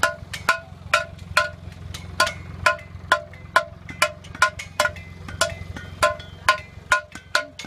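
Blacksmith's hammer striking iron on a metal cone mandrel, shaping it round, about two ringing blows a second. A steady low hum runs underneath.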